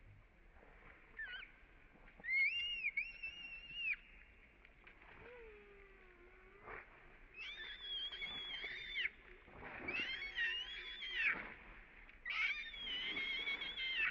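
Infant long-tailed macaque crying in distress: four long, high-pitched, wavering screams of a second and a half to two seconds each, after a short squeak about a second in.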